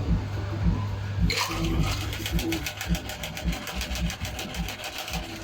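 Cocktail shaker shaken hard, ice rattling in a fast even rhythm of about eight strokes a second, starting about a second in and lasting about four seconds.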